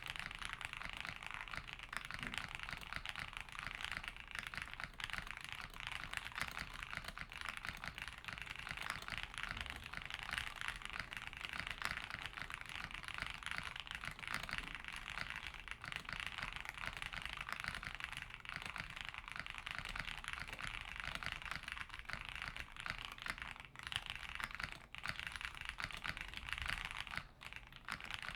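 Continuous fast typing on a mechanical keyboard with lubed and filmed Autumn Rain (Speechless) switches under PBT keycaps on a polycarbonate plate, a dense run of muted key clicks with a brief pause near the end.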